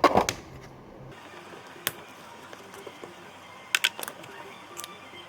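Sharp clicks and taps of tools and parts being handled as a car starter motor is taken apart: a cluster at the start, a single click about two seconds in, a quick group near four seconds and another near five.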